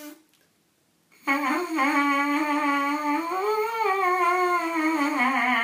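Lips buzzing in a flat brass embouchure, a held pitched buzz that starts about a second in, rises a little in the middle and sinks back toward the end.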